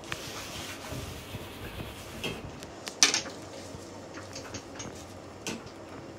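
Paper wraps around rolls rustling and crinkling as they are held, peeled back and bitten into, with scattered small clicks and one sharper crackle about three seconds in.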